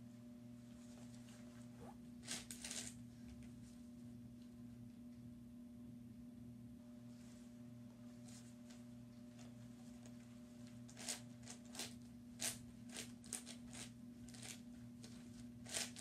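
YuXin 9x9x9 cube's plastic layers being turned by hand: short scraping clicks, a small cluster about two seconds in and a busier run over the last five seconds, with softer turning between. A low steady hum underlies it.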